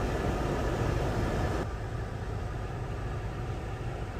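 A car running, heard from inside the cabin: a steady low rumble under a rushing noise whose upper, hissier part cuts off abruptly about a second and a half in, leaving a duller rumble.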